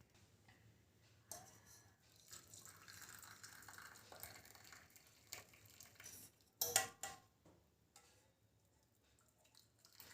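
Faint sound of tea being poured, a soft running liquid sound for about five seconds, then two or three sharp clinks of utensils or cups about two-thirds of the way through.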